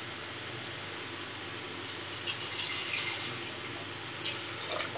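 Water poured in a stream into an aluminium pressure cooker of vegetable gravy, splashing steadily into the pot, a little louder about two to three seconds in.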